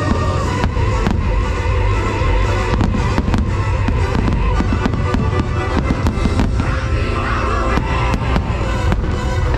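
Aerial firework shells bursting in a dense barrage, many sharp bangs in quick succession, over loud show soundtrack music.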